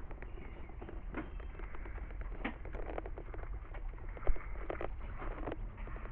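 Birds chirping and singing in short, irregular calls over a steady low rumble, with one thump about four seconds in.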